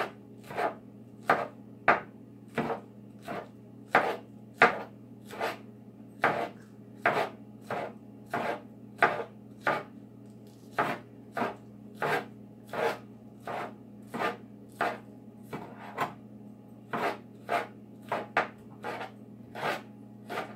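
Chef's knife chopping onion on a cutting board: steady, even strokes, about one and a half a second, each a sharp knock of the blade on the board.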